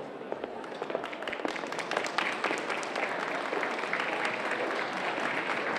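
Audience applauding, many hands clapping at once, swelling a little over the first couple of seconds.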